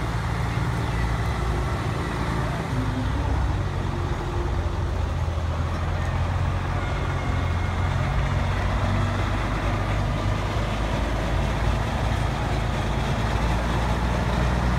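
Vintage fire engine's engine running steadily as the truck drives slowly past, a low rumble.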